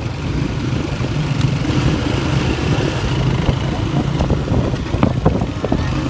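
Several small motorcycles riding along together, their engines giving a steady hum, heard up close from among the riders.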